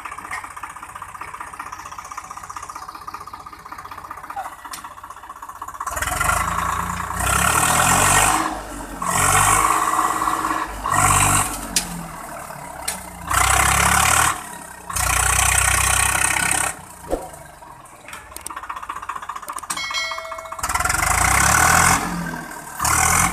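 Swaraj 744 FE tractor's diesel engine running steadily, then from about six seconds in revving hard in repeated bursts of a second or two each while it works the heavily loaded trailer.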